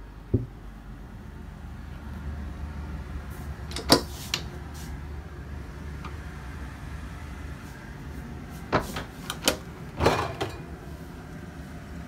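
Cabinet and fridge doors opened and closed, with latches and handles clicking: one knock near the start, two about four seconds in, and a quick cluster of four or five in the last third, over a steady low hum.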